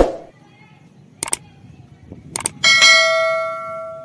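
Subscribe-button sound effect: a soft thump, then two pairs of mouse clicks, then a bright notification-bell ding that rings on and fades away.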